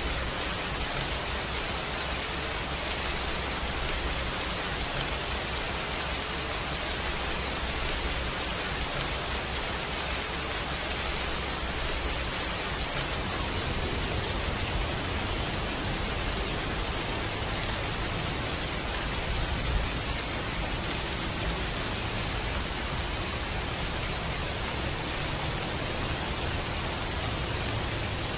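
Steady rain sound, an even hiss with no break or change, serving as the masking track of a subliminal recording.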